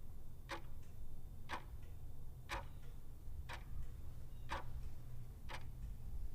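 Clock ticking sound effect: sharp ticks about once a second over a low steady hum.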